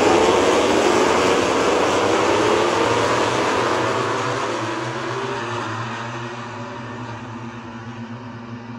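A pack of MotoGP racing motorcycles passing at speed, several 1000 cc four-cylinder engines rising in pitch together as they accelerate away. The sound fades steadily as the pack moves off down the straight.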